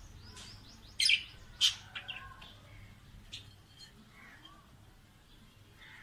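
Small caged parrots (budgerigars and lovebirds) calling: two loud, shrill calls about a second in and half a second apart, then a few softer chirps.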